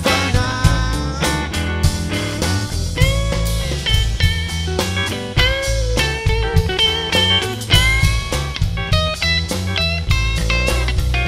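Live band playing an instrumental passage: a lead guitar line with bent, gliding notes over other guitars and a strong low end.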